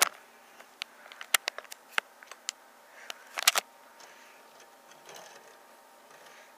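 Handling noise from a hand at the camera: a string of sharp clicks and taps, the loudest cluster about three and a half seconds in, then only faint room hiss.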